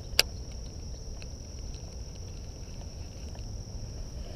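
Insects chirring in a steady high drone beside the pond, with a single sharp click about a fifth of a second in and a few faint ticks after it.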